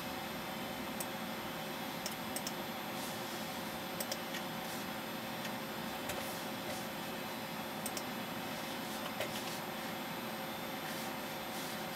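Steady whir of a running Milan 040 computer, with scattered light clicks from its controls as the web browser is used.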